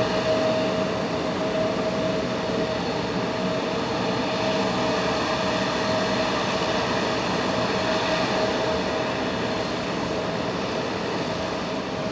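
Jet airliner engines running steadily with a constant whine over a broad rumble, as the Embraer 175 waits lined up on the runway before its takeoff roll.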